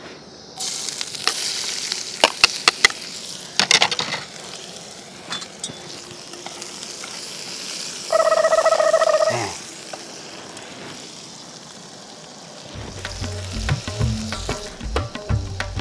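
Chopped vegetables sizzling in a hot wok on a gas burner, with metal spatulas clinking and scraping against the pan as they are stirred. A short steady tone sounds about eight seconds in, and music with a beat comes in near the end.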